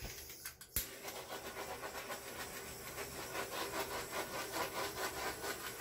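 A handheld electric air blower switches on with a click about a second in, then runs with a steady rushing hiss that pulses a few times a second.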